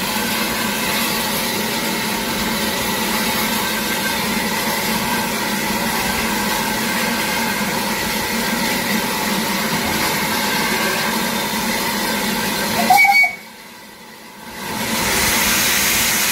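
Steam hissing steadily from a Hunslet Austerity 0-6-0 saddle-tank steam locomotive standing ready to depart, with steam blowing from around its cylinders. Near the end there is a brief louder burst, then the hiss drops away for a couple of seconds before building up again.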